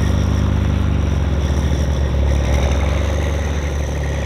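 Prinoth snowcat's diesel engine idling steadily with a low, even rumble.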